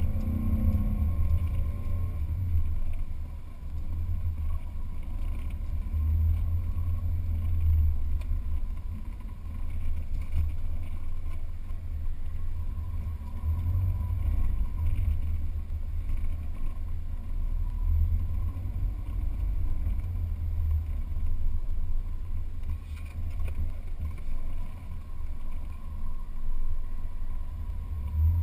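4x4 driving over sand dunes, heard as a low rumble of wind buffeting a bonnet-mounted camera's microphone over the vehicle's running noise, swelling and easing in waves.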